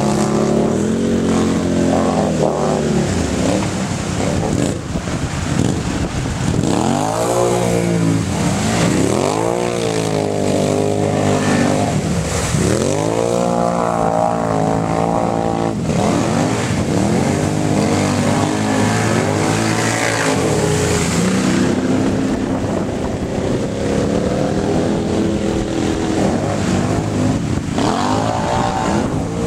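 ATV engine revving hard again and again, its pitch rising and falling every couple of seconds as the quad ploughs through shallow lake water, with water hissing and splashing under the spray.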